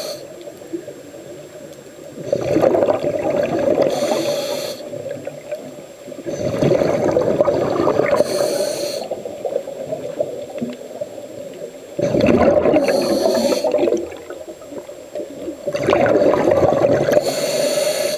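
Scuba diver breathing through a regulator underwater: four breaths a few seconds apart, each a long gurgling rush of exhaled bubbles with a short high hiss of the regulator.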